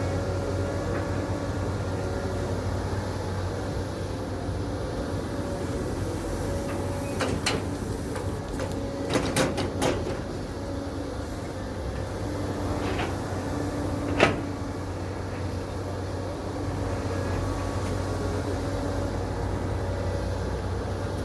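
Caterpillar 320D L excavator's diesel engine running steadily. A few sharp metallic knocks come through it: a cluster about halfway through and a louder single one a few seconds later.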